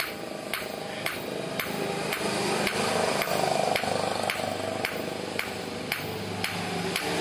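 Blacksmith's hand hammer striking a hot sickle blade on an anvil, steady evenly spaced blows about two a second.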